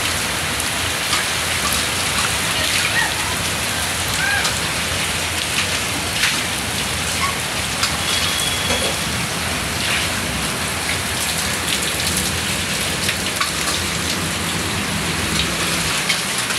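Heavy rain pouring down steadily, with water streaming off roof edges and scattered sharper drips and splashes.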